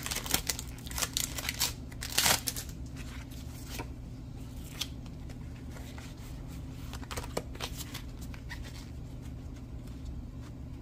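Foil Pokémon booster-pack wrapper crinkling and tearing open, loudest in the first two seconds. Then come a few faint clicks and rustles of the card stack being handled, over a steady low hum.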